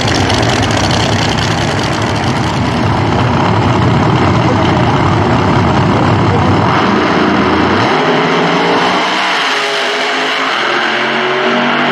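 Two Pro Nitrous drag cars' nitrous-injected V8 engines running at high revs through burnouts and a launch down the strip. The deep low end drops away about eight seconds in as the cars pull away.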